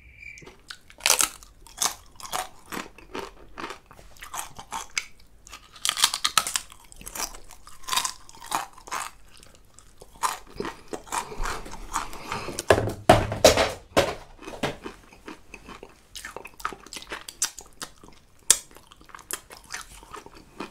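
Close-up chewing and crunching of a Paqui One Chip Challenge black tortilla chip: irregular crisp crunches and bites, loudest about two-thirds of the way through.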